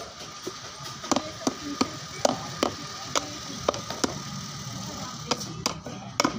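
Sharp irregular knocks, about two a second, from a piece of brick tapping on the plastic lid of a 12-volt Eastman lead-acid battery, seating the cover along its seam. A faint steady whine runs underneath.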